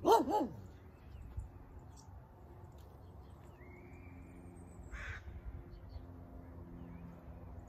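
A crow calling: two quick harsh caws right at the start, the loudest sound, followed by only faint background sounds.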